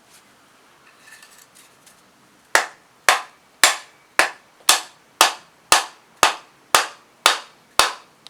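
Hand saw cutting through a piece of firewood: about eleven even strokes, roughly two a second, starting a couple of seconds in.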